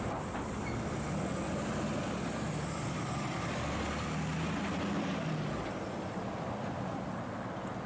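A heavy truck's diesel engine running as it moves past, over steady traffic and road noise. The engine note fades about five and a half seconds in.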